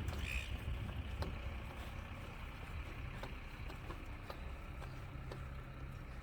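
Low, steady rumble of wind and water around a small fishing boat, with a few faint knocks and a short high chirp just after the start.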